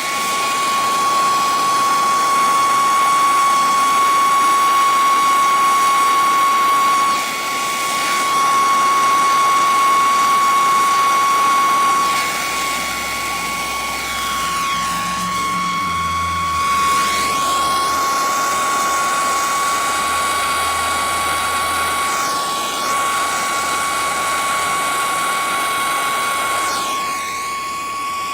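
Handheld gas torch burning steadily while heating aluminum tubing for brazing: a continuous hissing flame with a steady high whistle, the level dipping briefly a few times as the flame is moved.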